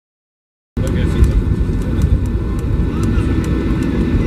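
Silence for under a second, then Boeing 737-800 cabin noise cuts in abruptly: a steady low rumble of the airliner taxiing after landing, its engines at idle, with faint passenger voices and a few light clicks and rattles.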